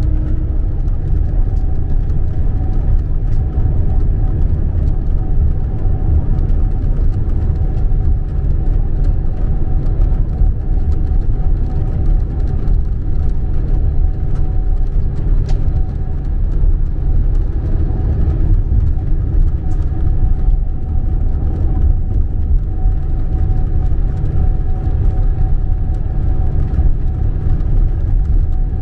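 Steady low rumble of a Scania Caetano Levante 2 coach under way, heard from inside the passenger cabin: engine drone and road noise, with a few faint engine tones held level throughout.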